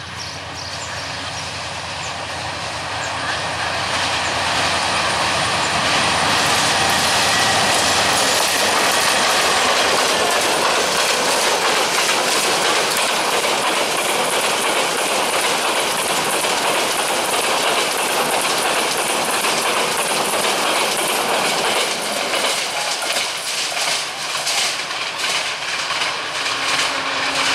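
Diesel-hauled express train passing close by at speed. The rush of wheel and track noise builds over the first several seconds and then stays loud, with the coaches' wheels clattering over the rail joints, clearest near the end.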